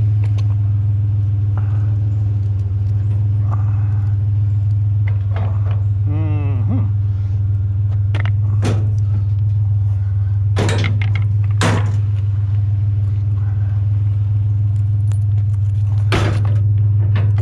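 Pickup truck engine idling steadily, with several sharp metal clanks and a short squeak about six seconds in as scrap metal is shifted around in the truck bed.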